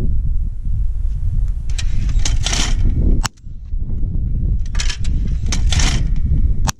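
Two 12-gauge shotgun shots from a Beretta A400 Xplor Action at thrown clays, about three seconds apart, over heavy wind rumble on the microphone.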